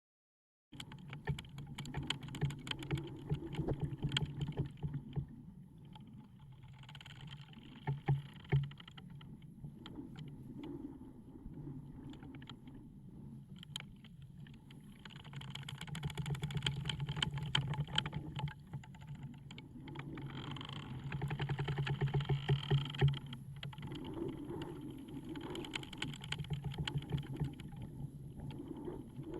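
Wooden ship's timbers creaking as the hull works: long, slow swells of low creaking and groaning, thick with small clicks and ticks. It starts about a second in and grows louder in two long swells in the middle.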